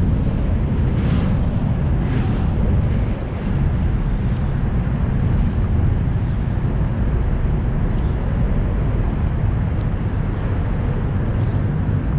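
Steady low rumble of outdoor city noise, made up of wind on the microphone and street traffic, with a brief dip about three seconds in.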